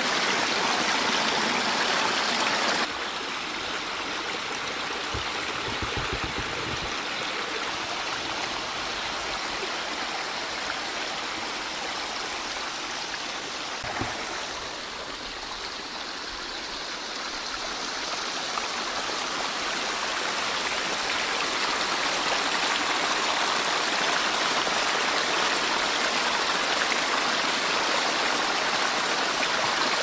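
A pondless waterfall's water runs steadily over granite boulders into a gravel basin. Its rush steps down about three seconds in, dips lower around the middle, then builds back up.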